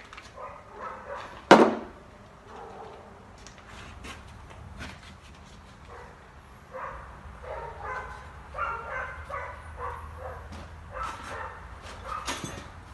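A dog barking repeatedly, with scattered clicks and knocks of work going on; one sharp, loud knock about a second and a half in.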